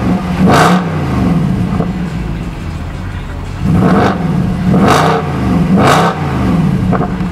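Mercedes C63 AMG's 6.2-litre V8 (badged 6.3) free-revving in park: one sharp blip about half a second in, then idle, then three quick blips about a second apart, each dropping back to idle.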